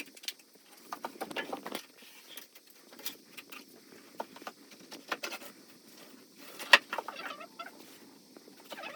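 Scattered knocks, taps and short scrapes of hand tools and loose pieces on an old fireplace surround being pulled out, with a sharp knock about seven seconds in.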